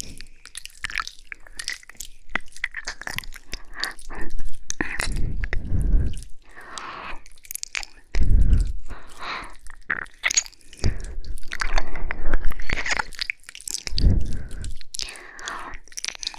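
ASMR ear-licking and kissing mouth sounds made close to the microphone: a steady run of wet smacks and clicks, with three louder low rumbles on the microphone about five, eight and fourteen seconds in.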